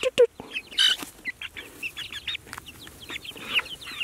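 Young chickens peeping and chirping in quick, short calls throughout, with a couple of lower clucks at the start and a short scratchy noise about a second in.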